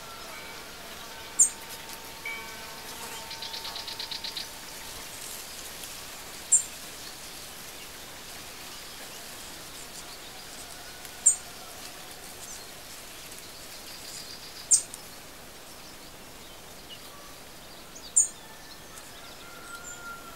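Outdoor bird ambience: five short, sharp, high-pitched chirps spaced a few seconds apart, a brief rapid trill about three seconds in, and faint distant calls over a steady background hiss.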